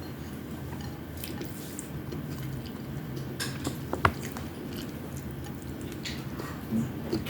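Close-miked chewing of fried tamban fish and rice, with wet mouth sounds and a few sharp clicks, the loudest about four seconds in. A steady low hum runs underneath.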